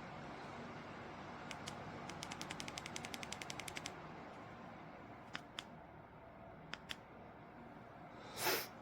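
LEVOIT tower fan running, its air blowing as a steady soft hiss. About a second and a half in comes a quick run of clicks, roughly eight a second for a little over two seconds, followed later by two pairs of single clicks.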